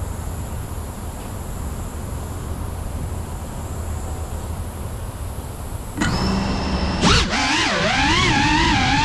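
GEPRC 3.5-inch cinewhoop FPV drone's motors and propellers: after a steady low rumble, the motors start about six seconds in with a steady whine, then a second later a loud rush as the throttle goes up and the drone lifts off, its whine wavering up and down before settling higher and louder.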